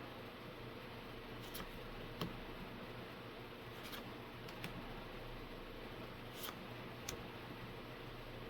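Magic: The Gathering trading cards being handled and flipped through, giving a few light clicks and snaps spaced a second or two apart over a steady faint room hum.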